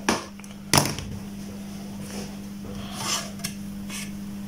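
Handling noise from a circuit board being picked up and turned over on a table: a light click, then a sharper knock about a second in, then soft rubbing and small clicks. A faint steady hum runs underneath.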